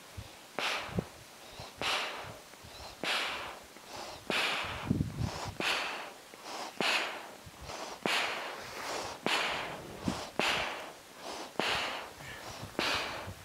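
A climber breathing hard, heavy rhythmic breaths about once a second, from the exertion of climbing a steep fixed-rope snow slope at extreme altitude.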